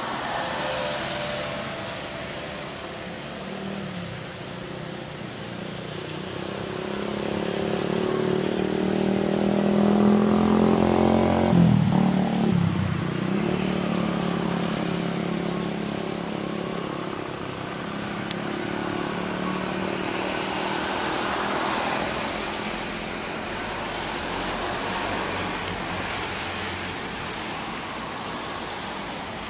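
Boeing 737 MAX 8 jet on landing approach: its CFM LEAP-1B turbofan engines give a steady whine and rumble. The sound swells as the aircraft passes closest, about twelve seconds in, with a sweeping swoop in pitch, then eases off as it flares over the runway.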